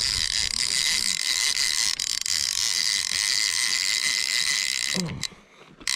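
A fishing reel's line clicker ratcheting steadily as a fish strips line off the spool, a catfish taking the live bait. It cuts off abruptly about five seconds in.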